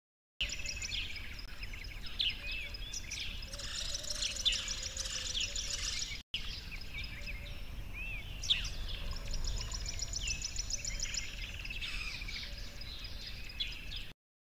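Several birds chirping and singing, with quick rising and falling whistles and fast trills, over a low steady hum. The sound drops out for an instant about six seconds in and cuts off just before the end.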